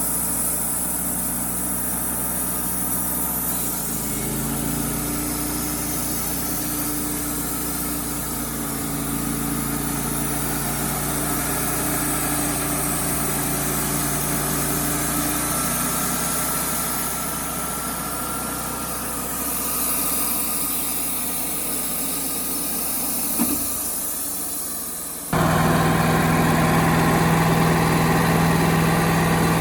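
Wood-Mizer LT35HD sawmill engine running steadily; about 25 seconds in it steps up louder with a strong, steady low hum.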